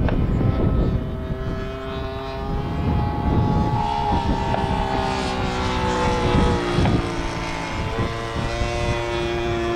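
The 52cc Taurus gas engine and propeller of a large RC Extra 330L aerobatic plane droning in flight overhead, its pitch slowly rising and falling as the plane moves and the throttle changes.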